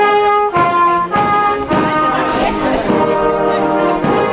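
Marching brass band of cornets and trombones playing a tune: a few separate held notes at first, then fuller chords from about a second and a half in.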